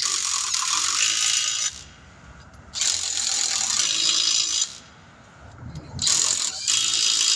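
Pneumatic impact wrench rattling in bursts as it drives the lug nuts onto a car wheel: two bursts of about two seconds each, then two short ones near the end.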